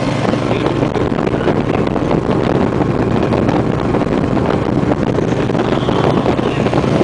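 Motorcycle engine running steadily at road speed, heard from on the bike, under heavy wind rushing over the microphone.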